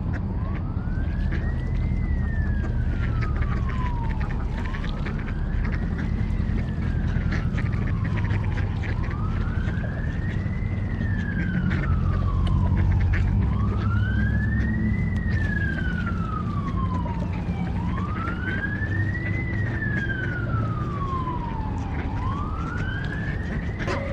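Emergency-vehicle siren in a slow wail: one tone rises over about two seconds and falls back over about two more, repeating about every four and a half seconds, over a steady low rumble. Near the end a second siren tone joins in.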